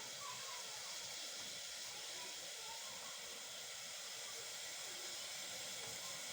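Steady hiss of a pot of kahwa, water with spices and tea leaves, boiling on a stove flame turned up high.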